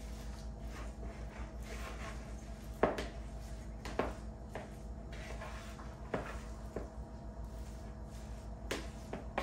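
Hands mixing a shredded-chicken and egg filling in a plastic bowl: a few light knocks over a steady low hum.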